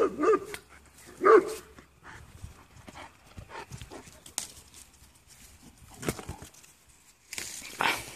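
A dog barking a few times in the first second and a half, then soft rustling of leaves and branches as apples are picked from the tree.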